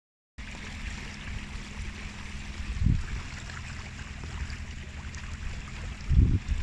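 Water rushing and splashing along the side of an inflatable boat under way, with a faint steady hum and a low rumble beneath. Two brief low thumps stand out, about three seconds in and near the end.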